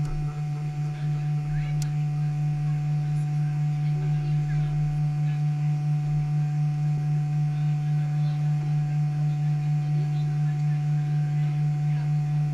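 A steady low hum with a few fainter higher overtones, swelling and fading gently a few times a second.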